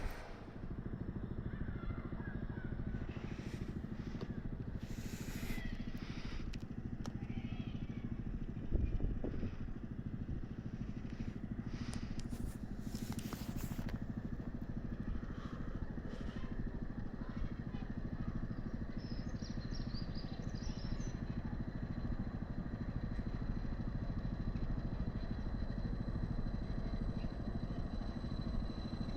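A steady engine rumble that holds throughout, with a few brief clatters and noises over it.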